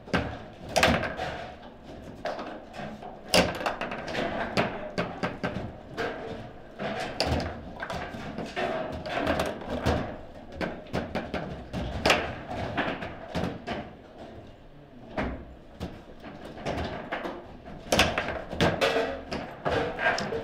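Table football (foosball) play: the ball striking the plastic players and table walls and the rods knocking, in sharp, irregular clacks. The rally ends in a goal near the end.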